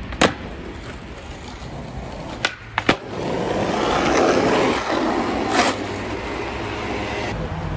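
Skateboard wheels rolling on asphalt with a steady rumble, broken by sharp clacks of the board hitting the ground: one just after the start, two close together about two and a half to three seconds in, and one more about five and a half seconds in.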